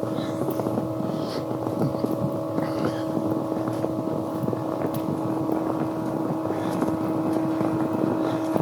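A vehicle driving on a wet road: a steady engine drone holding one pitch, over tyre and road noise.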